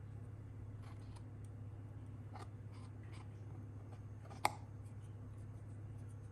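Faint scattered clicks and light scraping of small parts being handled during a fridge handle repair, with one sharp click about four and a half seconds in, over a steady low hum.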